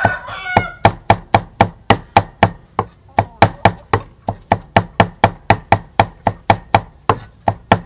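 Large kitchen knife mincing garlic on a round wooden chopping block: steady, evenly spaced chopping strokes, about four a second.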